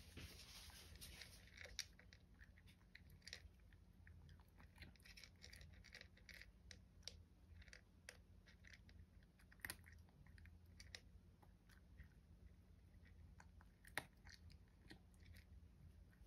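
A cat crunching dry kibble: faint, irregular crunching and clicking as it chews, with a few sharper clicks along the way.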